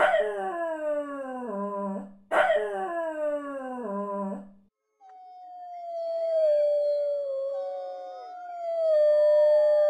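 Small dogs howling: two short howls, each starting high and sliding down in pitch. After a brief pause comes a long, drawn-out howl from several dogs in heat together, held steady and growing louder near the end.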